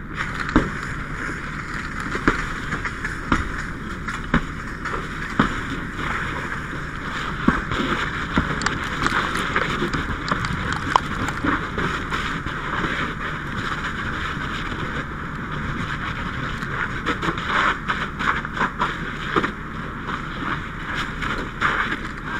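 A fully involved house fire: a steady rushing hiss with many sharp crackles and knocks.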